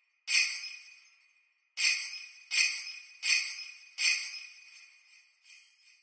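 Sleigh bells shaken in time as a count-in: two shakes a second and a half apart, then four quicker ones on the beat, each ringing out, followed by lighter jingling near the end.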